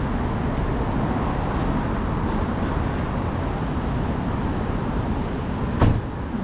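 City street traffic noise, a steady rumble of passing cars, with a single sharp knock near the end.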